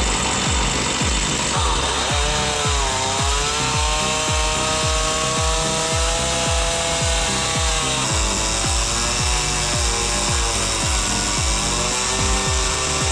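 Chainsaw running under load while it cuts lengthwise through a log, its engine pitch sagging as it bites in about two seconds in and again past the middle. A steady music beat plays underneath.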